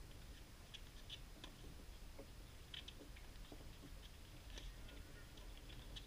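Faint tennis rally on a hard court: scattered soft ticks of the ball on racket and court, over a low steady background rumble.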